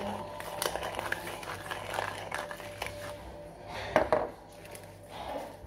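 Light clicking and scraping from a small metal kitchen tool being worked by hand, with a louder knock about four seconds in.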